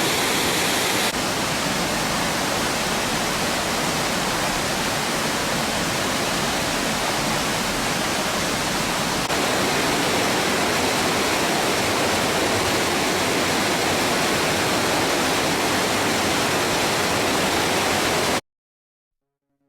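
Lolaia waterfall's water falling in a steady, loud rush of noise that cuts off abruptly near the end.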